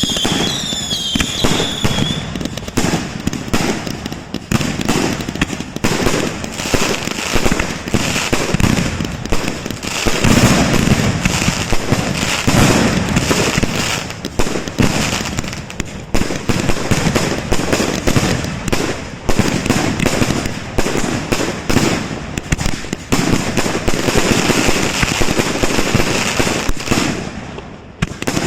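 Fireworks going off in a continuous barrage of bangs and crackling, with several shrill whistles in the first couple of seconds. The barrage thins out near the end.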